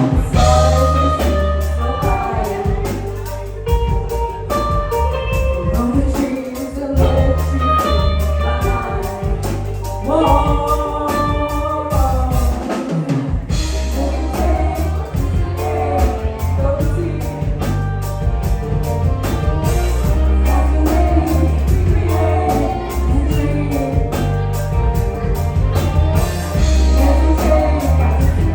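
Live band playing a song: drum kit and bass guitar under keys, guitar and saxophone, with female vocals singing.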